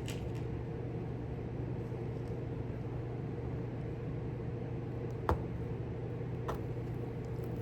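Steady low machine hum with a sharp click about five seconds in and a fainter click about a second later.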